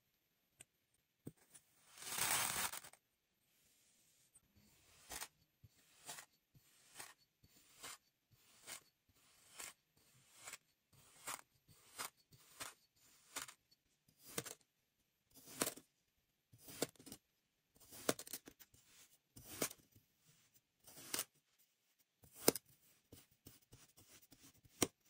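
Kinetic sand crunching and crumbling as it is pressed and cut: one longer crunch about two seconds in, then a long run of crisp, short crunching cuts about one a second as a metal tube cutter and a knife slice through a block of the sand.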